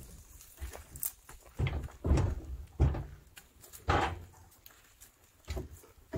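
Irregular wooden knocks and thuds, roughly one a second, as firewood logs are handled and set down on a stack.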